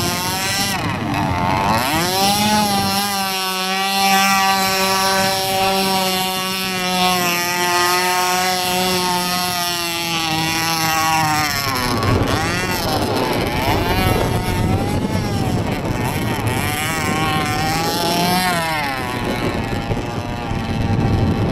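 Radio-controlled jet boat's motor running at speed, its pitch holding steady for a stretch and then rising and falling as the boat throttles and turns.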